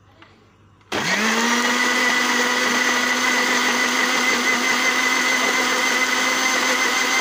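Electric blender switched on about a second in, its motor spinning up quickly to a steady, loud hum and whine as it blends chopped tomatoes, coriander leaves and green chilies with a little water into a smooth paste.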